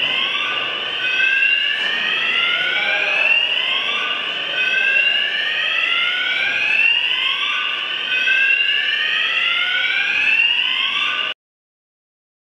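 Electronic alarm sounding repeated rising whoops that overlap one another, cutting off abruptly near the end.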